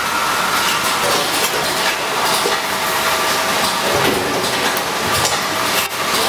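Vacuum brick packaging machine running: a steady mechanical clatter with a faint steady hum and many small metallic clicks.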